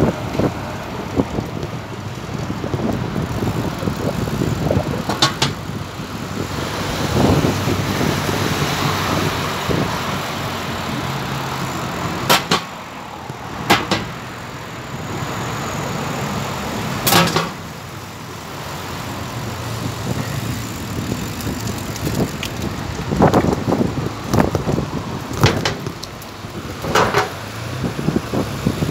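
Road traffic passing on the adjacent multi-lane road, swelling and fading as vehicles go by, heard from a moving bicycle. Sharp knocks break through several times, mostly in the second half.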